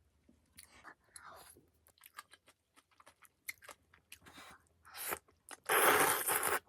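Close-miked mouth sounds of a person eating daechang jjageuli (braised beef large intestine): soft wet clicks and smacks of chewing, then a louder rush of noise lasting about a second near the end.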